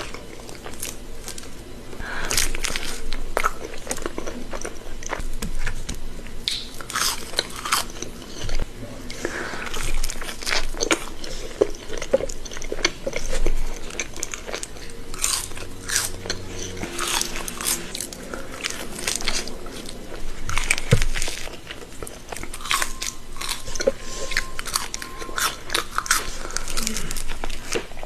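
Close-miked eating: a person biting into and chewing food, with many irregular crisp crunches.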